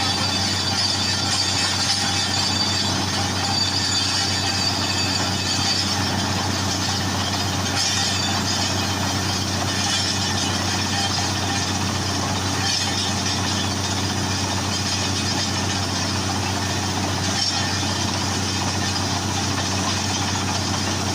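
Well side-boring drilling machine running steadily: a continuous engine hum with a hiss above it, holding the same pitch and level throughout.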